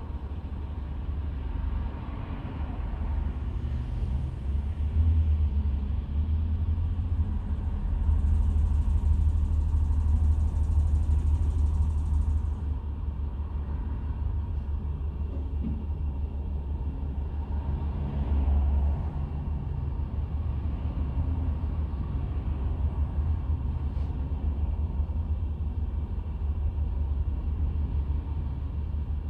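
A steady low rumble that swells louder for a few seconds about a third of the way in.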